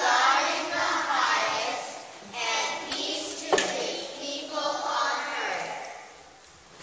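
Group of young children singing together in phrases, fading away near the end. A single sharp click sounds about halfway through.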